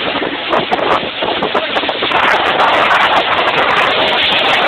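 Speedboat under way: its engine and the rush of wind and water make a loud, steady noise.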